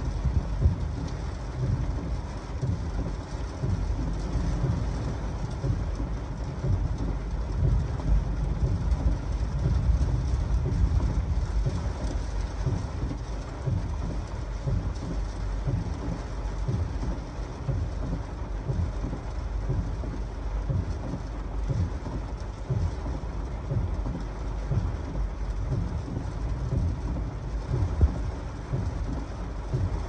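Heavy thunderstorm rain beating on a vehicle while strong gusty wind buffets it, heard from inside the cabin. The gusts come as irregular low rumbles that swell and fade, strongest a third of the way in and again near the end.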